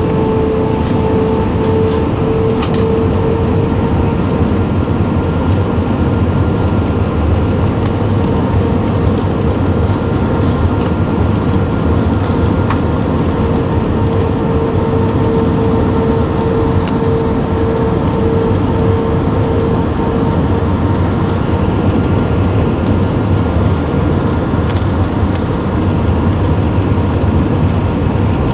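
Cabin noise of an Airbus A320 on final approach: its IAE V2500 turbofans and the rushing airflow make a loud, steady drone with a steady hum running through it.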